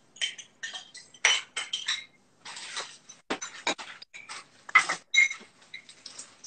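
Kitchen dishes clinking and knocking: a measuring cup and utensils tapping against glass bowls in a quick, irregular series of sharp clinks, with a short rustling stretch about two and a half seconds in.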